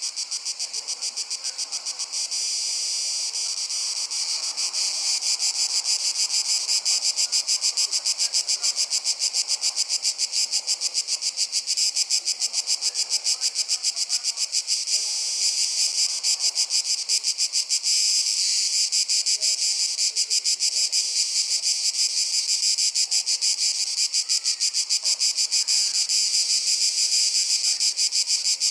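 Steady chorus of insects chirring in fast, even pulses, high-pitched, growing louder about five seconds in.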